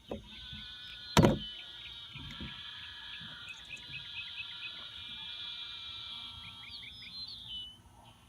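Spinning fishing reel being cranked, a steady whirr lasting about seven seconds, with a loud click about a second in. Birds chirp over it.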